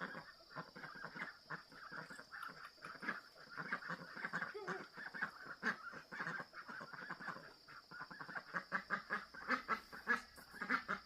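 A flock of domestic ducks or geese calling continuously, many short overlapping honks and quacks. A faint steady high whine runs beneath.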